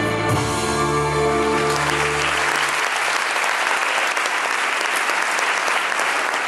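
Music ends on a held final chord that stops about two and a half seconds in, while audience applause swells over it and carries on steadily after.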